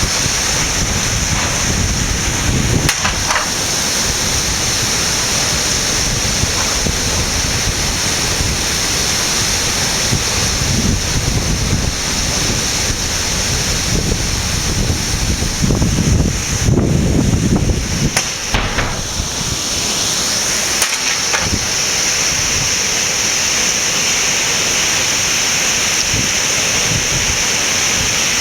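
Heavy rain and strong wind in a storm: a steady hiss of rain with wind gusting against the microphone, a heavier gust a little past halfway.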